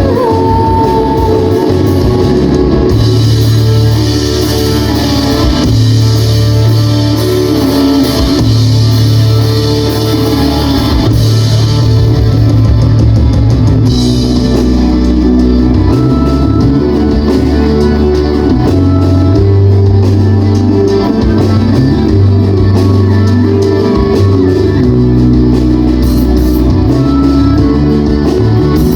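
A live rock band playing loudly, with guitar and drum kit over a steady bass, in a mostly instrumental stretch of the song.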